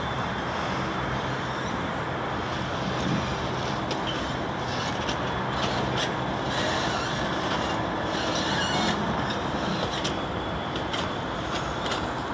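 Class 66 diesel-electric locomotive's EMD two-stroke V12 engine running steadily as the locomotive moves slowly along the tracks, with wheel and rail noise and short patches of high hiss.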